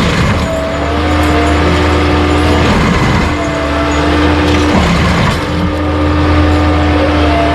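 Skid steer with a forestry mulcher head running under load: a steady heavy engine hum with a higher whine that wavers in pitch, easing briefly every couple of seconds.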